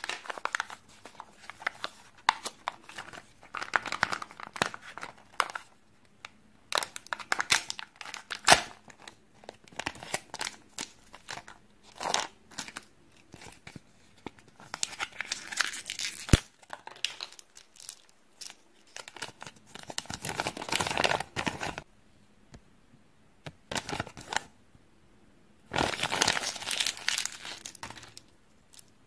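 Kinder Joy egg packaging being handled and opened: foil wrappers crinkling and tearing in irregular bursts, with sharp clicks of the plastic egg halves, lid and small plastic toy pieces in between.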